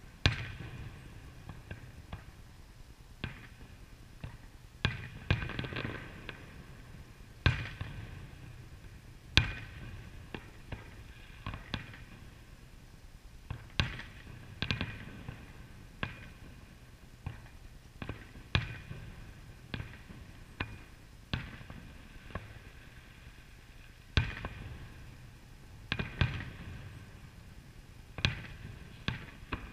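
Aerial fireworks shells bursting: a string of sharp booms at irregular intervals, often two or three close together, some followed by a short fading rumble.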